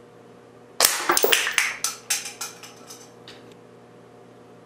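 Air rifle shot about a second in, the .177 pellet smacking into a plastic toy and knocking it off its board, followed by a quick run of small clattering knocks that die away over the next two seconds or so as the toy falls and bounces.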